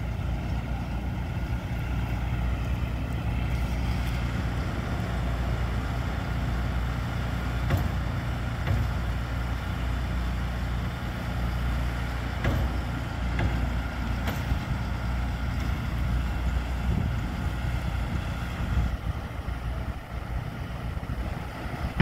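Construction equipment engine running steadily at idle, a low even hum, with a few faint knocks.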